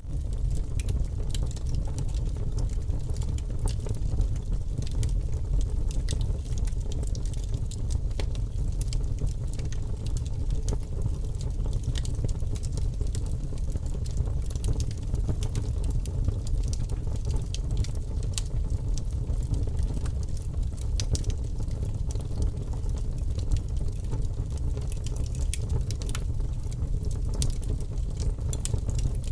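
Steady low rumble with many small crackles and pops scattered throughout, an unvarying ambience bed.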